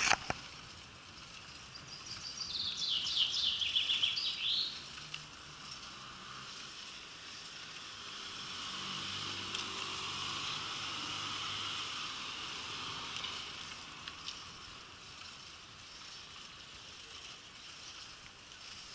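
Street ambience heard from a moving bicycle: a brief sharp clatter at the very start, then a songbird's quick trill of notes falling in pitch and ending in a flourish, about two to five seconds in. Later a car passes, its tyre and engine noise swelling and fading over several seconds.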